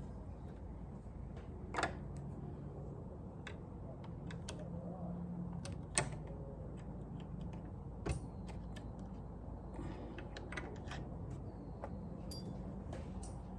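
Scattered light clicks and taps of sewing machine parts being handled during cleaning, the sharpest about two, six and eight seconds in, over a steady low hum.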